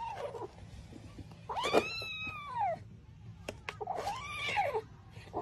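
Kitten giving long meows that rise and then fall in pitch, a fresh one about every two seconds, with a few short clicks between them.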